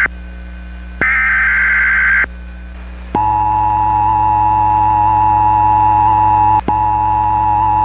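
Emergency Alert System tones: one burst of SAME header data tones, a harsh electronic screech about a second long, then about three seconds in the EAS attention signal starts, a steady two-pitched tone, with a brief dropout near seven seconds.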